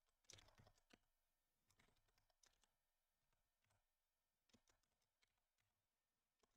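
Faint computer keyboard typing: a few short clusters of keystrokes with pauses between them.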